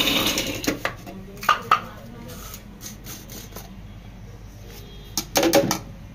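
A small mixer grinder's motor cuts off at the start. Then come sharp knocks and clinks as its jar is twisted off and handled, and a quick cluster of taps near the end as the ground Oreo biscuit is knocked out into a plastic blender jug.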